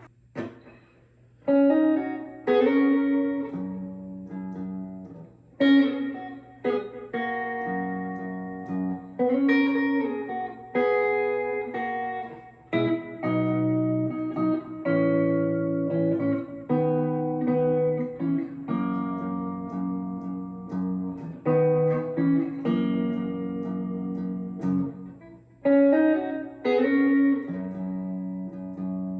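Les Paul electric guitar playing a slow chord-inversion passage with moving voice-led lines. Each chord is struck and left to ring, the first about a second and a half in.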